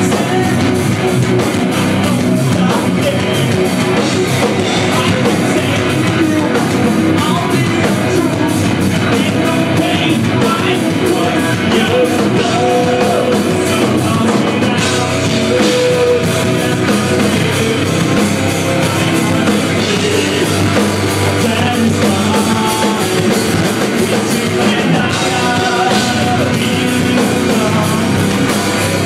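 Rock band playing live at full volume, with guitars and drums and a singer's voice coming in at times.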